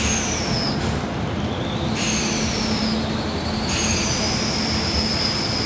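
Passenger express train's coaches rolling slowly along the platform as the train pulls out, wheels squealing in high thin tones that slide down in pitch, break off and return, with the steady rumble of the running gear underneath.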